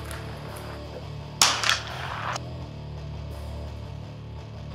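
A single .22 LR shot from a Henry lever-action rifle: a sharp crack about a second and a half in that trails off over about a second. Guitar music plays underneath.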